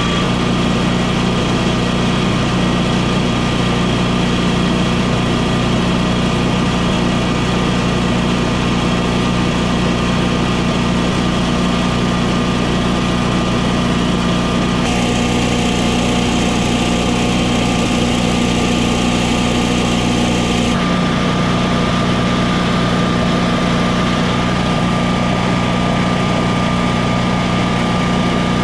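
Air-cooled twin-cylinder engine of a home standby generator, a freshly installed replacement, running steadily at constant governed speed just after its first start. Between about halfway and two-thirds of the way through, an added higher hiss comes and goes over the steady running.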